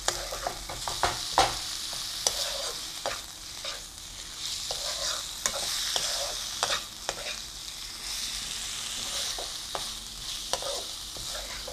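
Chicken pieces sizzling as they are sautéed in a frying pan, with a spatula scraping and knocking against the pan in irregular strokes as they are stirred.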